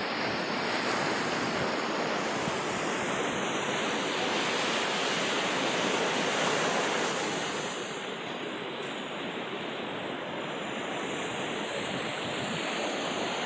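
Sea surf washing up on the beach: a steady rush of breaking waves that swells about halfway through, eases off, then builds again near the end.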